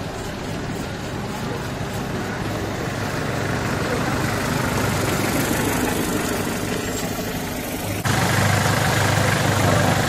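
Engine idling steadily without revving, getting abruptly louder about eight seconds in.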